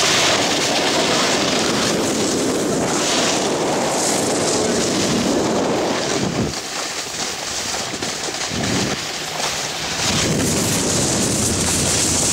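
Snowboard sliding over packed snow with wind rushing across the microphone: a steady noisy rush that eases for a few seconds past the middle and builds again near the end.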